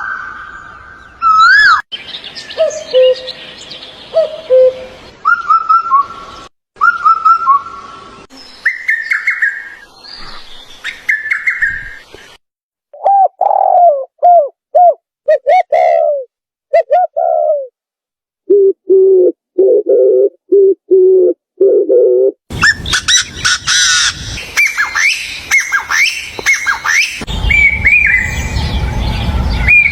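A string of different bird calls joined with abrupt cuts: clear whistled notes and short phrases first, then runs of lower repeated notes, then from about two-thirds of the way in a dense chorus of many birds chirping together.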